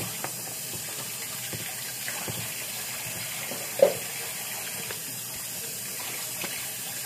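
A steady hiss of noise throughout, with a few faint ticks and one short, loud pitched sound about four seconds in.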